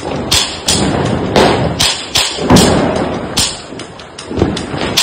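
Firecrackers going off one after another in a rapid, slightly uneven string of sharp bangs, about two or three a second.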